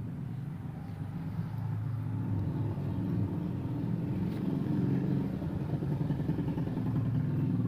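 A motor engine running with a steady low hum that grows louder about two seconds in.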